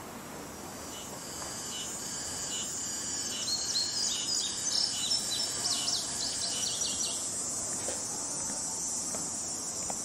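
Birds chirping, short repeated chirps that grow busier in the middle, over a steady high-pitched insect drone like crickets. The whole sound fades up slowly over the first few seconds.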